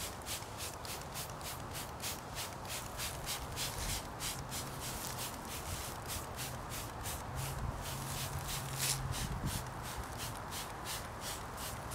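A paintbrush scrubbing back and forth over a wet painting, a quick scratchy rhythm of about four strokes a second.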